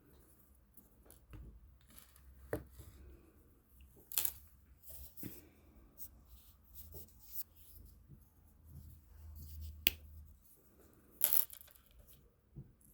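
Coloring tools and paper being handled: irregular light taps, clicks and rustles, the sharpest clicks about ten and eleven seconds in, over a low hum that stops about ten seconds in.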